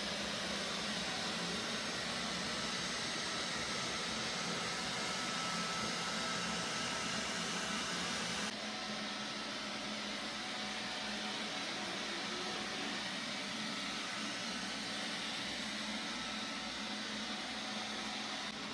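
Neato XV-21 robot vacuum running across a hardwood floor with a steady whirring noise. It gets a little quieter about eight and a half seconds in, where it is farther away.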